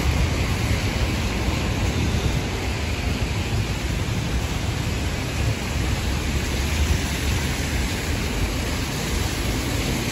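Steady hiss of rain and of traffic on wet city streets, over a heavy, uneven low rumble.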